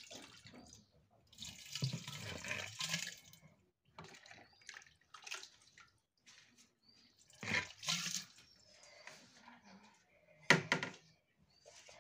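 Curd (yogurt) poured from a plastic bucket into a narrow-mouthed clay churning pot, splashing and dripping in a few separate gushes, the longest about two seconds in.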